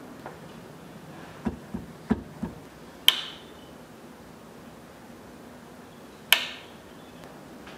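A few soft low knocks, then two sharp metallic clicks with a short ring about three seconds apart, as a metal key is twisted in the panel of a Korg digital keyboard, as if tuning it.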